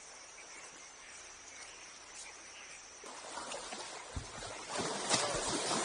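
Insects droning with a steady high tone over quiet outdoor ambience. About three seconds in it gives way to a louder rushing noise with a few low thumps.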